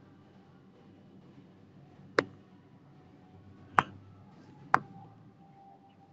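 Three sharp, separate clicks, the first about two seconds in and the next two about a second and a half and one second after it, over a faint room hum.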